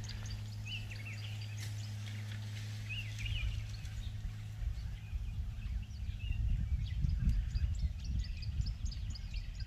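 Outdoor ambience: small birds chirping in the background over a low rumble. A steady low hum runs for the first half and then stops.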